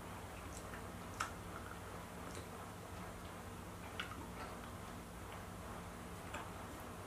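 Faint, scattered small clicks of someone eating a mangosteen, picking the flesh out of the opened rind with the fingers and mouthing it. The sharpest clicks come about a second in and again about four seconds in, over a low steady hum.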